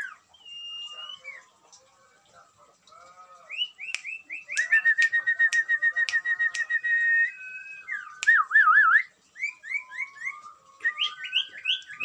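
Small caged songbirds (sirtu) chirping and whistling. Runs of short rising notes lead into a fast trill lasting a couple of seconds, then a wavering whistle, with a few sharp ticks in between. Near the end, quick repeated rising chirps.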